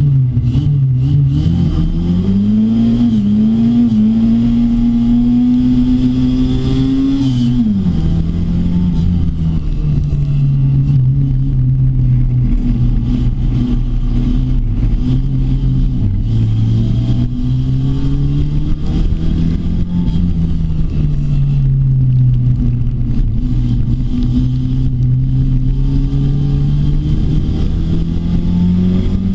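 Rookie Rod stock car's engine heard from inside the cockpit while racing on an oval. It revs up steadily for about seven seconds, drops sharply as the driver backs off, then rises and falls again as it accelerates and lifts through the laps.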